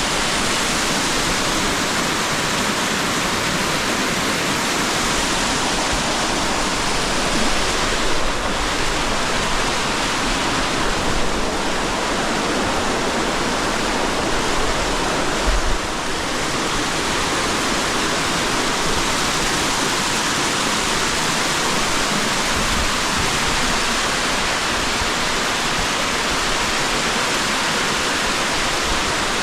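Waterfall: the loud, steady rush of water falling onto rock, unbroken throughout.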